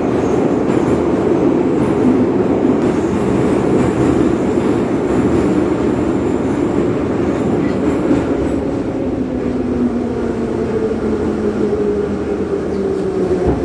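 Kyiv metro train running through the tunnel, heard from inside the car: a loud steady rumble of wheels and motors. From about two-thirds through, a whine falls in pitch as the train slows for the station.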